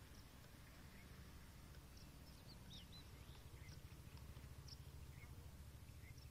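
Near silence: a faint low rumble with a few faint bird chirps, most of them about two and a half to three seconds in.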